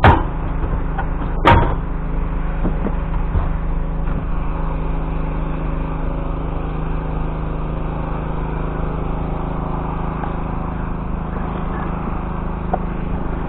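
A sharp slam about a second and a half in, then a vehicle engine running steadily.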